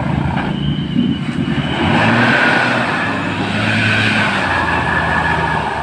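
Bus engine running with a multi-tone 'basuri' musical horn sounding high held notes that shift from one pitch to another.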